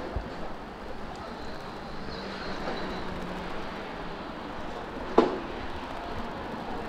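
City street ambience with a steady hum of road traffic, and one sharp knock about five seconds in.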